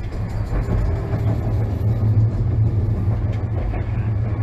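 Kagoshima City streetcar running along the track, heard from inside the car: a steady low rumble of wheels and running gear.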